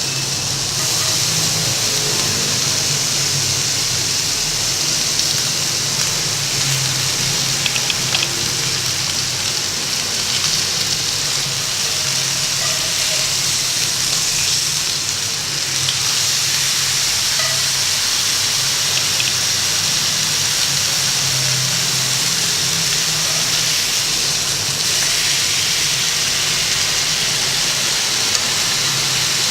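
Thin slices of beef belly sizzling in a Lodge cast iron pan: a steady frying hiss with a few small pops, over a low steady hum.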